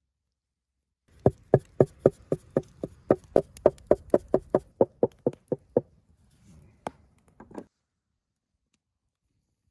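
A pointed wooden stick pricking flatbread dough, striking through to the wooden board beneath in a quick, even run of knocks about four a second. A few separate knocks follow.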